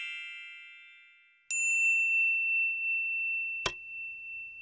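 Intro sound effects: a bright chime rings out and fades away. About a second and a half in, a second high ding starts and holds steady. Near the end comes one sharp mouse-click sound.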